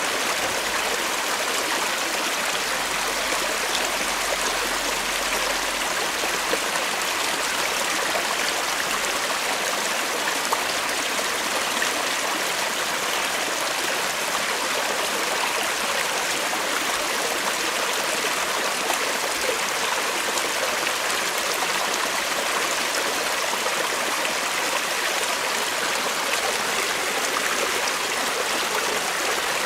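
Forest creek flowing steadily, a continuous rushing and babbling of water over stones.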